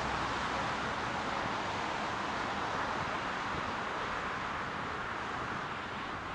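Steady rush of road traffic going by, easing off slightly toward the end.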